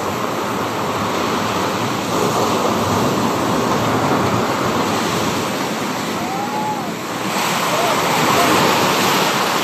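Sea waves breaking under a strong wind, with wind blowing hard across the microphone: a loud, steady rush of noise that swells near the end.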